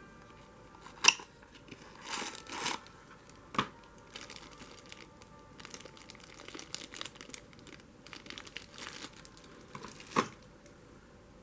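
Packaging being handled: crinkling and rustling, with three sharp clicks or knocks spread through it.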